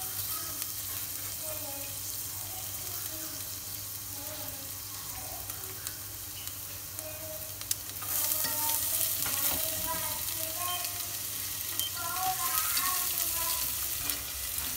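Minced garlic and shallots sizzling in pork fat in a stainless steel pot. The sizzle grows louder about eight seconds in, as a knife scrapes more into the pot and chopsticks stir it.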